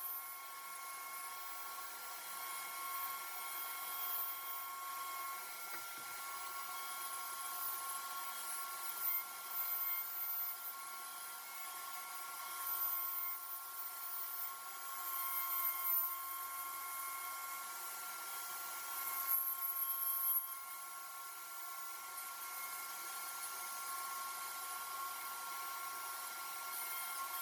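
A small motor running steadily with a high-pitched whine, with a few brief louder surges.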